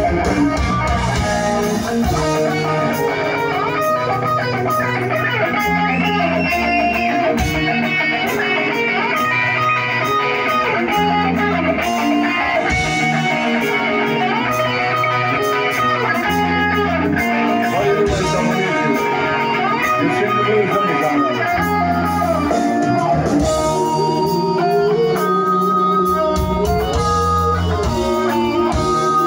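Live hard rock band playing, with electric guitar to the fore over bass guitar and drums.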